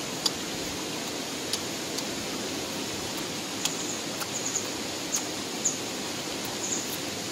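Steady outdoor background hiss, with scattered short clicks and small high chirps every second or so.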